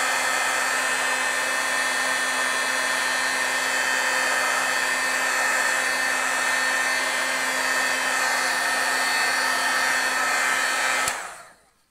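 Handheld craft heat gun blowing steadily, a fan rush with a steady low hum, switched off near the end. It is drying and heat-setting soaked dye ink on glossy card stock.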